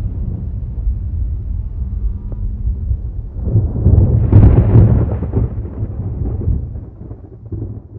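Thunder rumbling, swelling to a loud crackling peak about four seconds in, then rolling away and fading.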